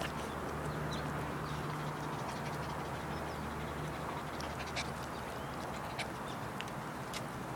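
Small dog panting after a walk. A few sharp clicks come about five and six seconds in.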